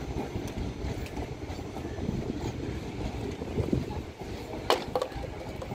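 Indian Railways sleeper coaches rolling past as the train pulls out of the station: a steady low rumble of wheels on rail, with a sharp clank about three-quarters of the way through.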